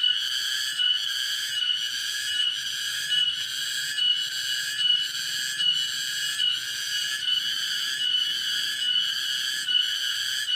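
Steady chorus of calling frogs or insects: a high, shrill trill that pulses evenly about twice a second without letting up.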